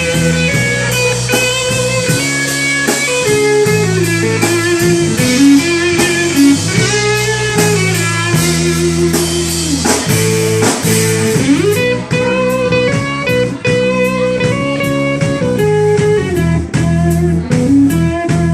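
A live rock-blues band playing an instrumental break: a guitar plays a lead line with bent notes over bass and a steady drum beat.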